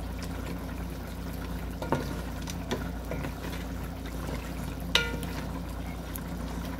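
Wooden spoon stirring a simmering stew in a large aluminium pot, the sauce bubbling and squelching under the spoon. The spoon knocks against the pot a few times, the loudest about five seconds in with a short metallic ring.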